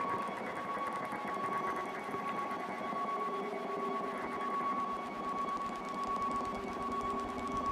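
Experimental electronic music: one high tone held dead steady, over a grainy, hissing texture with a quieter lower tone that wavers and slides a little.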